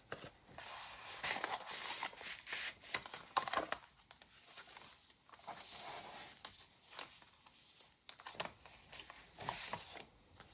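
Paper and card pages of a handmade junk journal rustling and crinkling as they are turned and unfolded by hand, with a few small clicks and taps among them.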